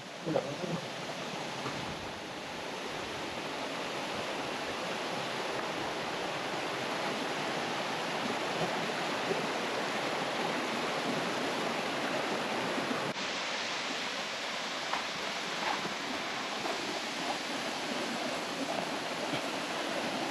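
Water pouring down Liêng Ài waterfall, a steady rushing noise that turns a little brighter about 13 seconds in.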